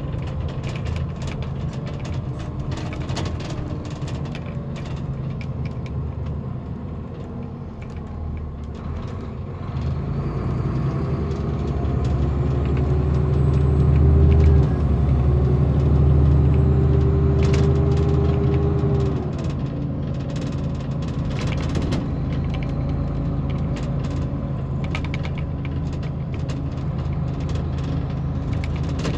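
A 2008 VDL Bova Futura FHD120-365 coach's engine and ZF gearbox, heard from inside the passenger saloon. The coach runs steadily, then about ten seconds in it pulls harder under load with a rising whine. The whine breaks briefly near the middle as the gear changes, and a few seconds later it drops back to steady running, with light rattles throughout.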